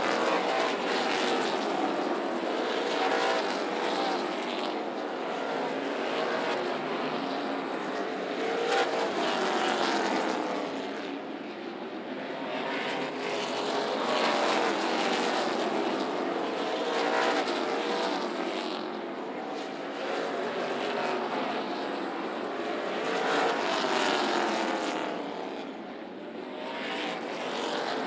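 NASCAR K&N Pro Series stock cars' V8 engines running at racing speed on a short oval. The engine note rises and falls in repeated swells as the cars go around the track.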